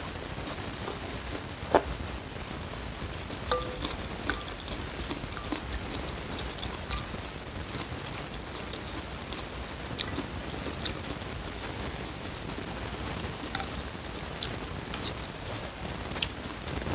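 A man eating noodles in spicy soup: chewing, with scattered sharp clinks of a metal fork and spoon against a ceramic bowl, a few of them ringing briefly.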